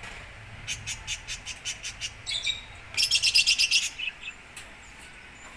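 Indian ringneck parakeets chirping: a quick run of short high notes, then a louder burst of chatter about three seconds in.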